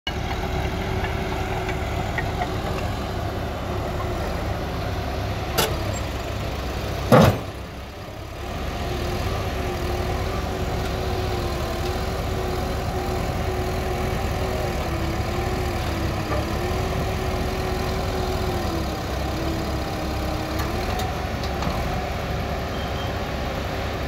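Diesel engines of a Caterpillar excavator and crawler bulldozer running steadily as they push and drag a broken-down bulldozer, with a whining tone that wavers in pitch in the second half. Two sharp knocks about five and a half and seven seconds in, the second the loudest.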